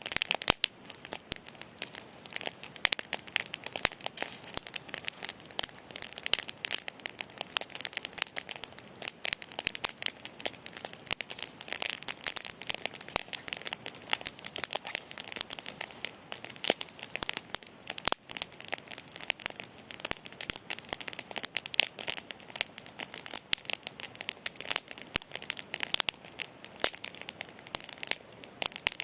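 Cedar-wood campfire crackling, a steady, dense run of sharp snaps and pops.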